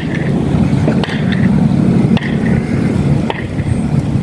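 Wind buffeting the microphone: a loud, steady low rumble that swells and dips, with a few faint clicks.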